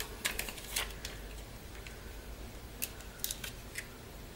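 A few light, sharp clicks as a sheet of small plastic half pearls is handled over a paper cover.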